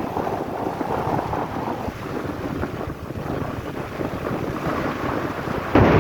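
Strong sea wind buffeting the microphone on a small fishing boat, with waves washing; the wind gets suddenly louder near the end.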